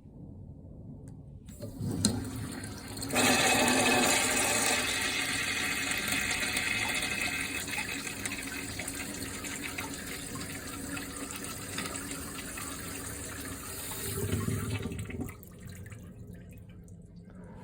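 A click, then a urinal's push-button flush valve releasing a loud, steady rush of water for about twelve seconds before the flow drops away.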